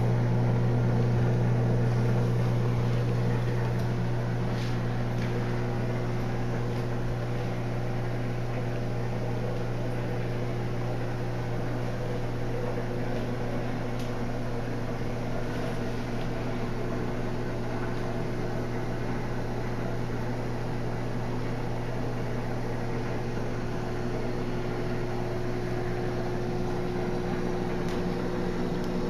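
Steady electric hum of an aquarium pump, with a faint hiss of bubbling water.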